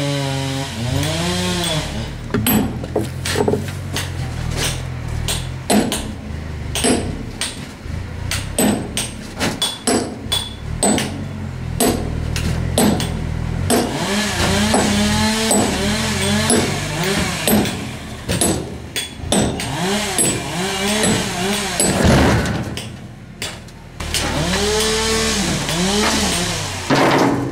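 Hammer striking steel wedges set in drilled holes in a granite slab to split it: a long run of sharp metallic blows at an irregular pace. Under the blows an engine runs, its pitch rising and falling again and again.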